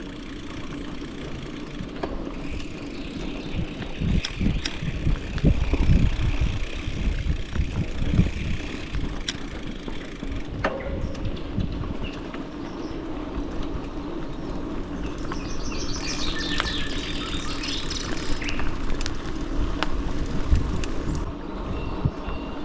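Mountain bike riding over a bumpy dirt trail: tyres rumbling on the ground, with irregular thumps and rattles as it hits bumps. A bird chirps briefly about two-thirds of the way through.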